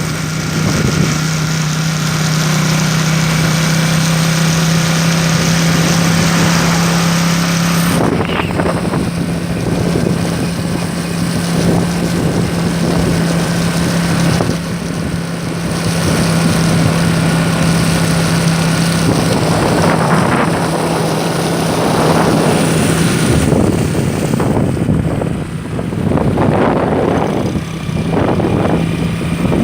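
Engine running steadily with a constant low drone, under a loud rush of wind and water noise.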